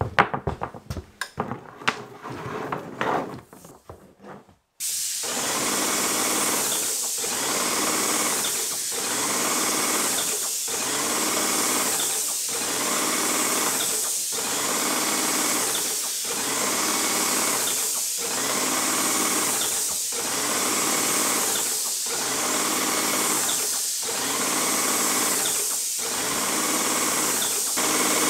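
Airless paint sprayer running and spraying: a loud, steady hiss and mechanical run that starts abruptly about five seconds in and dips briefly in an even rhythm about every two seconds. Before it, a few scattered knocks.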